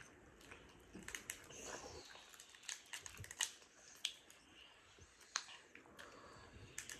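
Faint chewing and mouth sounds of people eating a seafood boil, with scattered sharp clicks and crackles of crawfish and shrimp shells being cracked and peeled by hand; a few louder snaps come in the second half.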